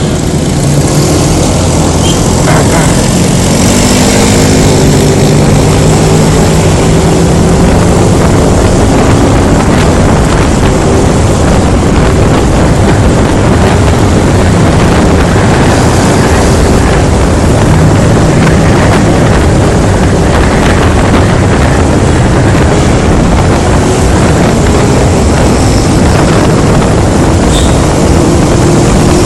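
Honda Scoopy scooter under way, heard through a helmet-mounted phone microphone: loud, steady wind rush over the mic with the engine's hum underneath, its pitch shifting now and then as speed changes.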